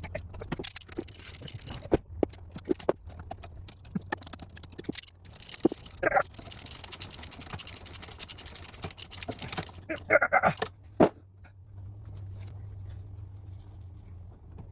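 Hand tools working on a motorcycle: scattered metallic clicks and scrapes, with a run of rapid, even ratchet-like clicking for about three seconds in the middle.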